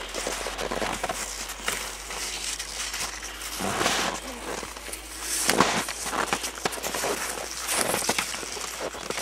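Cross-country skis crunching and scraping on snow in uneven steps as a skier climbs a slope in herringbone, with pole tips planting in the snow. There are stronger scrapes about four, five and a half, and eight seconds in.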